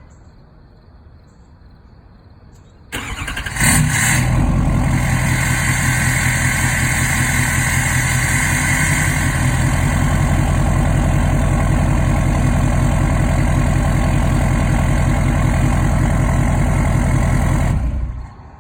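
LML Duramax 6.6-litre V8 turbodiesel cranking and catching about three seconds in, then idling steadily with a high whine over the diesel clatter. The engine shuts off near the end. It is warm, so this is no cold start, and it runs with an aftermarket crossover pipe and a resonator delete fitted.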